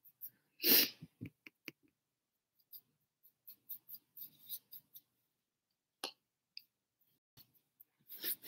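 A paintbrush stroking and scratching on a stretched canvas in short, irregular strokes, with a brief louder rustle about a second in and a quicker run of strokes near the end.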